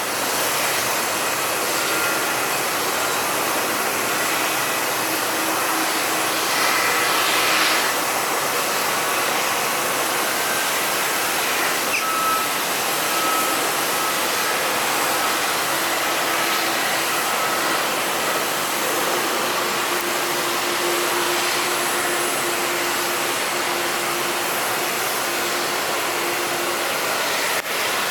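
Jet airliner engines running at low power on the airport apron: a steady rushing noise with faint whining tones that come and go.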